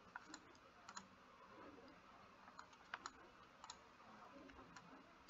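Faint computer mouse clicks, a scattering of single clicks spread irregularly over a few seconds, against near-silent room tone.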